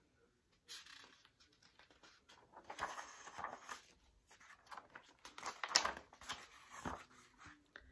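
Pages of a hardcover picture book being handled and turned: several soft paper rustles and slides, the loudest about three seconds and about six seconds in.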